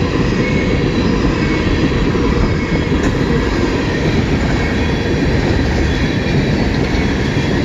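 Freight train rolling past at close range: a steady heavy rumble of wheels on the rails, with faint thin squealing tones above it.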